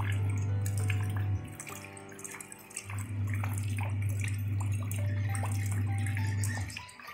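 Rain falling on a shallow puddle over gravel, a dense scatter of small drop splashes. Under it runs soft background music with held notes and a loud, deep bass tone that drops out twice, about a second and a half in and again near the end.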